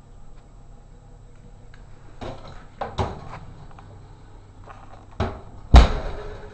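Oven door being handled: a few knocks and clatters, then the door shut with a loud slam near the end that rings briefly.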